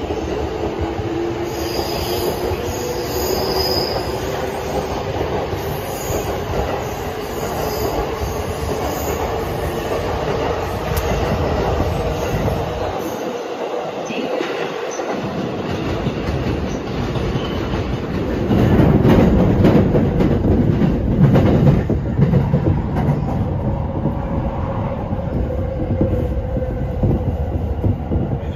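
Tokaido Line electric commuter train moving along a station platform: rumble of wheels on rail with a motor whine that rises in pitch over the first few seconds as the train gathers speed. The train noise gets louder and deeper for a few seconds about two-thirds through.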